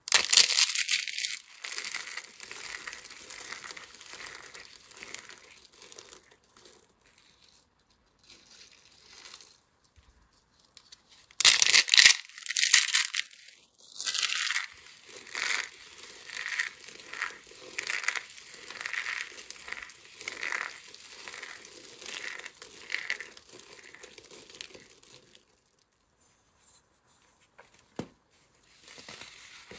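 Thin dried soap-rose petals crackling and crunching as they are crushed in the hands. The crackle is dense at first, with a loud burst about halfway, then crushing squeezes about once a second. Near the end it falls quiet apart from a single click.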